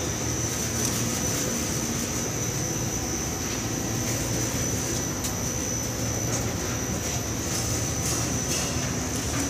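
Snack pellet production line machinery running steadily, a continuous mechanical drone with a steady high whine over a low hum.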